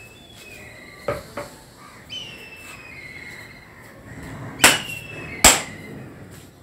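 Dumbbell plates being handled and knocked together: a couple of light clicks, then two sharp ringing knocks about a second apart near the end.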